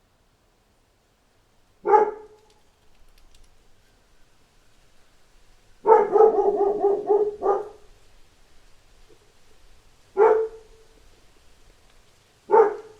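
A dog barking: single barks about two seconds in and twice near the end, and a quick run of several barks in a row in the middle.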